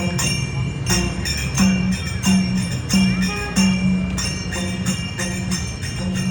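Bhajan kirtan devotional music: ringing metal percussion struck about once or twice a second over low drum-like notes, with faint singing.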